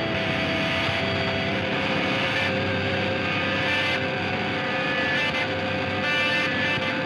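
Background music: sustained, droning chords that shift in pitch every second or two, with no break in the sound.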